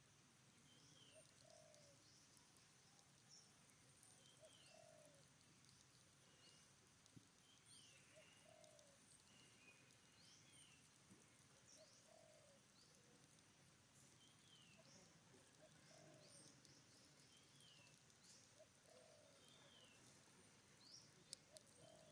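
Faint bird calls: a low, short call repeated about every second and a half, with higher chirps and whistles between, and a couple of faint clicks near the end.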